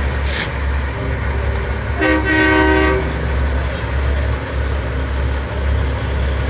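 A truck's horn sounds once, a loud chord lasting about a second, about two seconds in, over the steady low rumble of truck engines.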